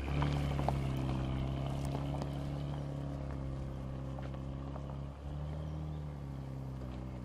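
Audi SQ5 engine running at steady revs under load, with a short break and shift in pitch about five seconds in, like a gear change. Faint scattered clicks ride over it.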